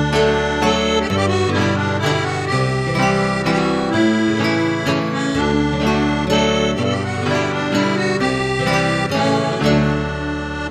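Instrumental background music, an accordion tune over a bass line that changes note about once a second.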